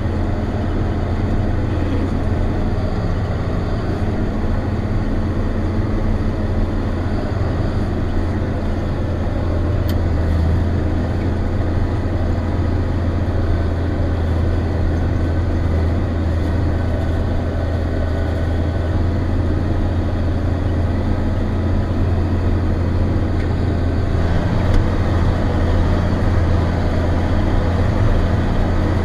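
John Deere 7800 tractor's six-cylinder turbo diesel engine running steadily with a deep, even drone, heard from inside the cab; it grows slightly louder near the end.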